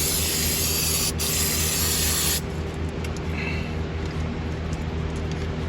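Spray hissing steadily at a corroded relay-box connector to clean dirt out of it, cutting off sharply about two and a half seconds in. A steady low hum runs underneath.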